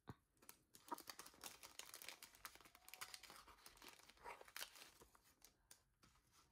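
Faint crinkling and rustling of vinyl decal sheets, their backing paper and clear plastic film, handled and shuffled between the hands. The crackles come irregularly and thin out near the end.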